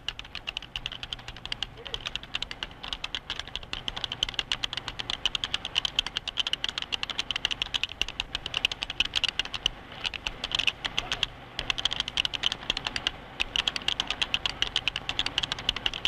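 Fast touch-typing on a 1978 video display terminal keyboard used for computerized typesetting: a dense, steady run of key clicks, broken by a couple of brief pauses about two-thirds of the way through.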